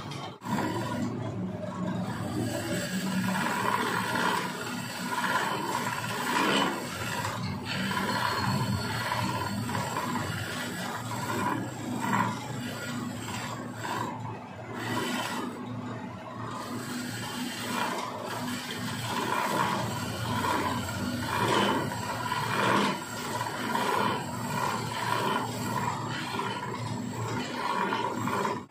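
Hand-held turning tool cutting into a long wooden swing leg spinning on a wood lathe: a continuous rasping scrape that swells and eases as the tool is worked along the wood.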